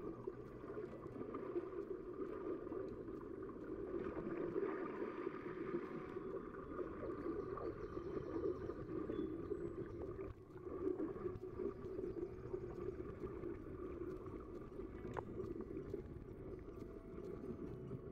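Muffled water sloshing and gurgling close to the microphone of a camera floating at the waterline, with a single click about fifteen seconds in.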